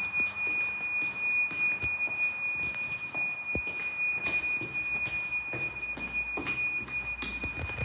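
Electronic beeper sounding one steady, high-pitched tone without a break, over scattered light knocks and taps.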